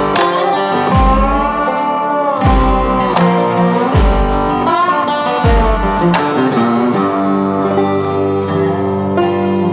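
Background music led by guitar, with a low drum beat about every second and a half that drops out about six and a half seconds in.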